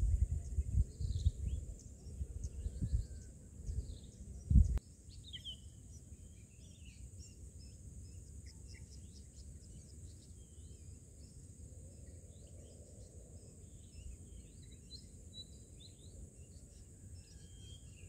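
Outdoor bird ambience: many short, scattered bird chirps over a steady high insect drone. A low, gusty buffeting rumble covers the first few seconds and cuts off suddenly about four and a half seconds in.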